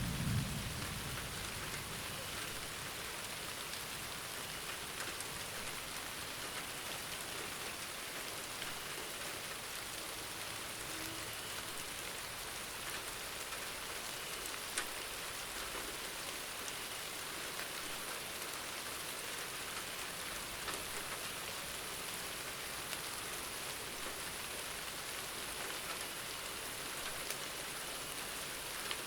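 Steady rain falling on a surface, an even hiss with an occasional sharper drop tick. The tail of a low thunder rumble dies away at the very start.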